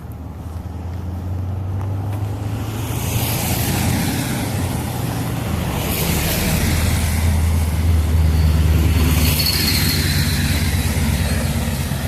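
Road traffic passing close by: a low engine hum throughout, with tyre hiss swelling as several vehicles go past, loudest in the second half.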